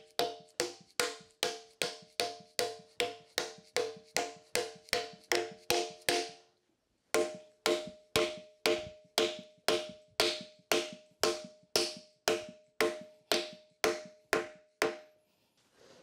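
Steady series of blows from an orange mallet on a wooden block held against a collar and shaft, driving the press-fit parts into the grinder's saddle, about three blows a second. Each blow is a sharp knock with a short ringing note. After a brief pause about six and a half seconds in, the blows go on with a different ringing pitch.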